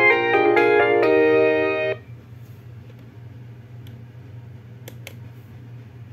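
A polyphonic ringtone melody plays from the Huawei ETS3125i phone's speaker and ends on a held chord about two seconds in. A low steady hum follows, with two short clicks near the end.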